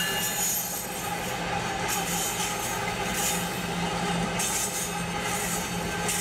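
Diesel locomotive running light at speed: a steady engine drone with rushing wheel and rail noise, heard from a car pacing alongside.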